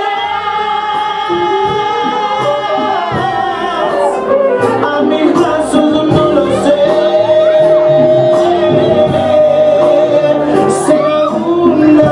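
Music with a singer holding long notes over a band accompaniment.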